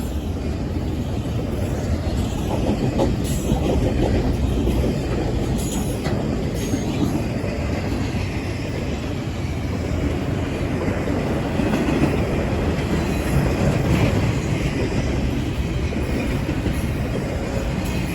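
Long train rolling by on the rails as it slows: a steady rumble of wheels on track, with occasional clicks and faint wheel squeal.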